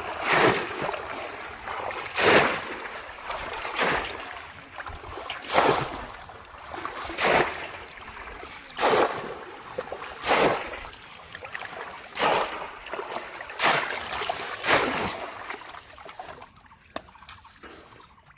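Splashes in shallow river water, about one every one and a half seconds, as a bamboo polo fish trap is plunged down into the water again and again; they stop near the end.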